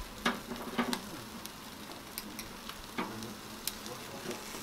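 Chicken sizzling on a charcoal barbecue grill, with a few sharp clicks of metal tongs and skewers against the grill wire.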